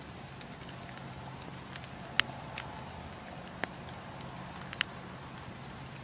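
Wood campfire burning: a steady hiss of flames with scattered sharp crackles and pops from the burning logs, the loudest about two seconds in and a few more over the next three seconds.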